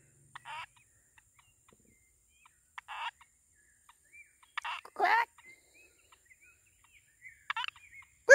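Frogs calling: four short calls about two seconds apart, the loudest about five seconds in, with faint short chirps between them. A sharp click comes at the very end.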